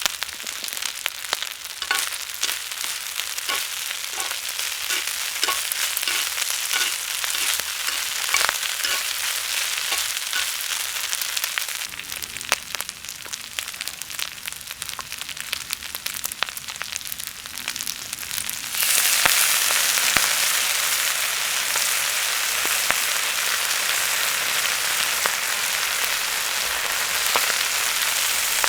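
Wood fire crackling and popping, then, about two-thirds of the way through, a louder steady sizzle of food frying on an iron griddle over the fire.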